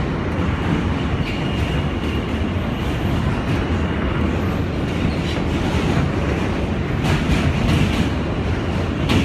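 Inside an R160B New York City subway car running at speed: a steady rumble of wheels on rail with a faint high whine early on. Near the end comes a louder stretch of wheel clacks as another train passes close alongside.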